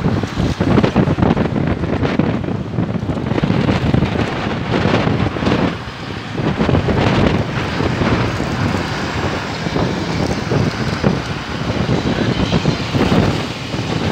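Wind buffeting a phone's microphone in uneven gusts, over the steady sound of street traffic passing.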